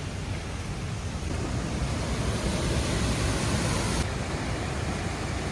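A steady rushing noise with no distinct events; its highest hiss drops away about four seconds in.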